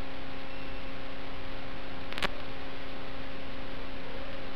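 Steady electrical hum under a constant hiss, with a short click a little after two seconds.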